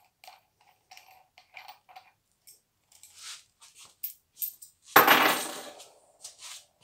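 Small metal washers being handled, clicking and jingling lightly, then a loud metallic clatter about five seconds in that rings away over about a second.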